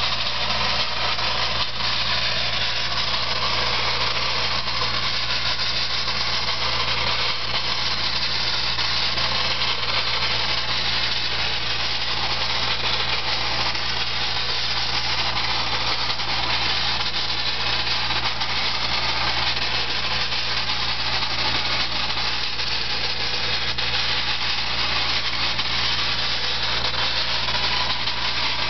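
Corncob media blasting: a steady hiss of ground corncob blown by compressed air to strip the finish off log walls, over the steady drone of the air compressor's engine.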